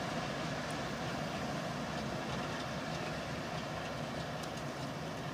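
Four GE diesel-electric locomotives running light and moving away down the track: a faint, steady engine and rail sound.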